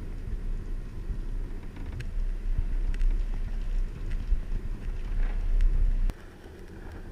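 Hurricane wind buffeting the microphone: a heavy low rumble that cuts off abruptly about six seconds in.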